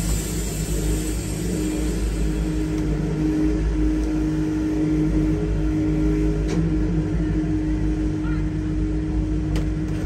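Wood-Mizer LT70 Wide sawmill's engine running steadily, a deep even rumble with a constant hum above it, while the mill is not cutting.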